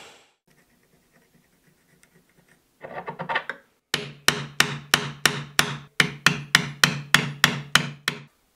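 Wood chisel struck with a mallet, chopping a hexagonal recess into a small hardwood block: a quick flurry of light taps, then a steady run of about fourteen sharp blows, roughly three a second, that stops shortly before the end.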